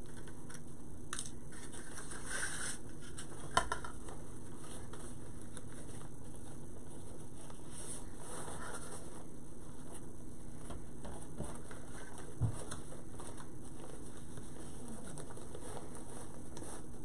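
Wired Christmas ribbon rustling and crinkling as it is twisted into loops on a dowel bow maker, over a steady low hiss. There is a sharp click a little over three seconds in and a short low knock about twelve seconds in.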